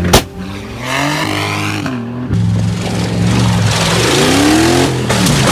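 A sharp bang right at the start, then an SUV's engine revving hard. Its pitch climbs steeply while the vehicle is airborne off a dirt jump and drops again just before the end.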